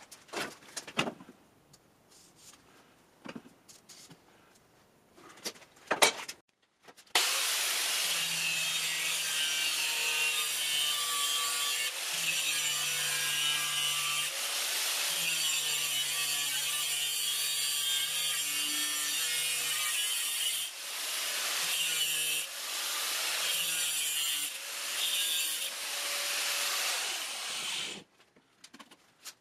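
Angle grinder with a cut-off disc cutting the sheet steel of an ammo can. The motor's whine and the hiss of the cut run steadily, its pitch sagging and recovering under load, and the cut eases off and bites again several times near the end. Before the grinder starts there are a few light knocks.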